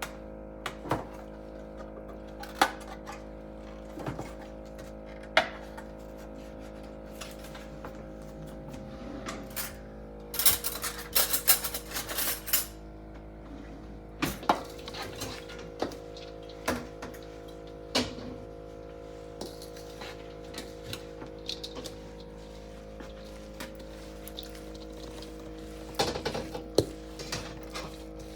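Scattered clinks and knocks of kitchen dishes and utensils, with a longer run of scraping and rattling about ten seconds in and another cluster of clatter near the end, over soft background music.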